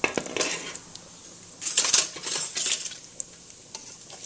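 Metal tongs clinking and scraping against a stainless steel skillet of frying bacon, several sharp clicks with scraping stretches in between.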